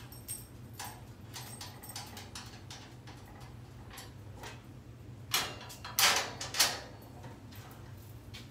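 Hand tools working the bolts of a steel roof basket: small metal clicks and taps throughout, with three louder metallic clanks a little past the middle, as the bolts at the joints are fitted and tightened.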